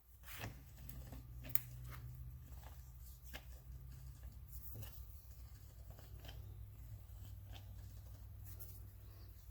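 Scattered light clicks and taps of hand work on a Char-Lynn 207 hydraulic torque generator during reassembly, with one sharper click about a second and a half in, over a low steady hum.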